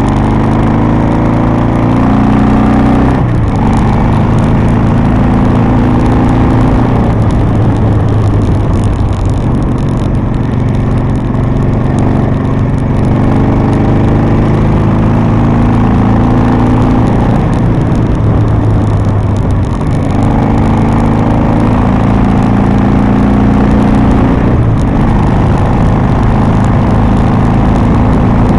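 Harley-Davidson V-twin motorcycle engine running under way, its pitch shifting at gear changes about four times, with wind rushing past the microphone.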